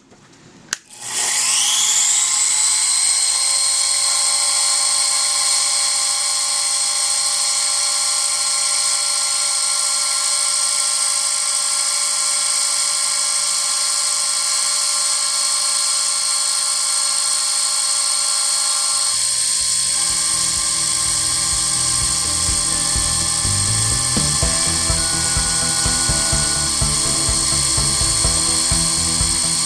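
Sherline CNC mill spindle, on a 10,000 RPM pulley set, switched on with a click and spinning up in about a second to a steady high-pitched whine. About two-thirds of the way in, a lower, rough, uneven noise joins the whine, with a few short rising and falling tones.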